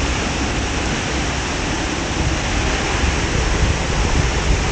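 Waterfall rushing: a steady, even wash of noise with a strong low rumble underneath.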